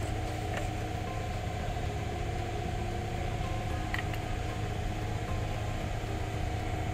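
Steady mechanical hum, engine- or motor-like, with a couple of faint clicks.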